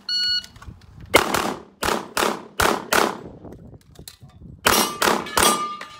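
Electronic shot timer beeps once, then a USPSA Limited-division pistol fires eight shots: five in quick succession, a pause of over a second, then three more.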